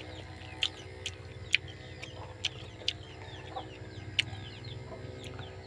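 Chickens clucking and short high chirps in the background throughout, with about six sharp clicks scattered through and a steady low hum underneath.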